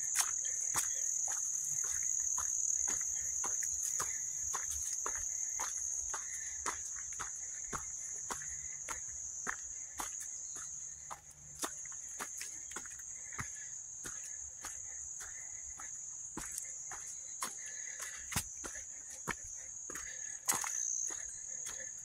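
Steady high-pitched insect chorus from the surrounding woods, with the walker's footsteps on a dirt trail at a couple of steps a second.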